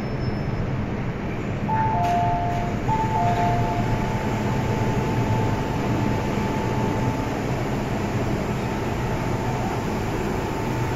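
MTR M-train standing at an underground platform with a steady low rumble and hum. About two seconds in, a two-tone chime sounds twice as the train and platform screen doors open, and its higher note holds on faintly for several seconds.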